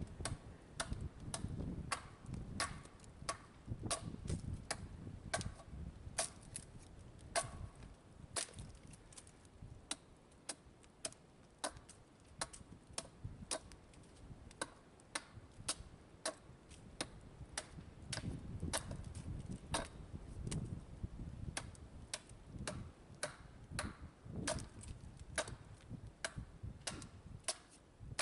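Axe chopping into a green red oak log in steady, sharp strikes about two a second: rough reduction of a mallet blank.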